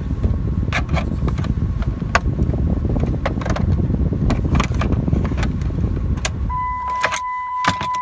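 Sharp plastic clicks and creaks as a screwdriver pries at the upper steering-column cover of a 2007 Dodge Ram 1500, over a continuous low rumble. About six and a half seconds in, the rumble drops away and a steady high tone starts and holds.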